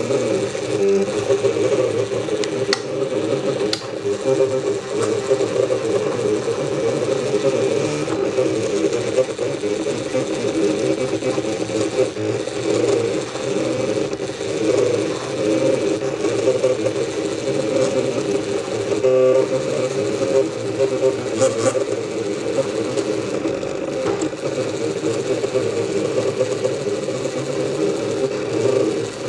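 MakerBot Cupcake CNC 3D printer running a print: its stepper motors whir in several shifting tones as the build platform and head move.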